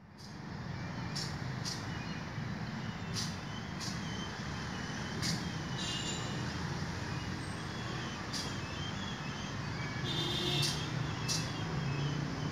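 Steady low rumble, like an engine running nearby, with short sharp high-pitched ticks or hisses about once a second at irregular spacing.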